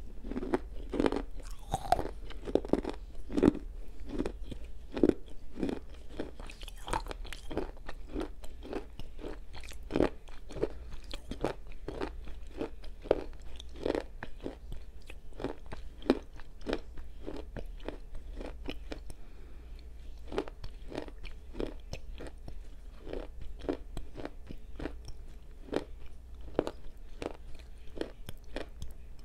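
Close-miked chewing of a black slate edible clay bar, softened by soaking in boiling water: steady crunching at about two bites a second, louder and crisper in the first several seconds, then somewhat softer.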